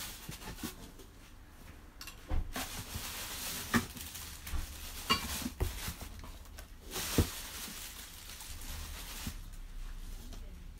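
Cardboard box and packaging rustling and scraping as a vacuum cleaner's extension tube is pulled out of its carton, with a few sharp knocks along the way.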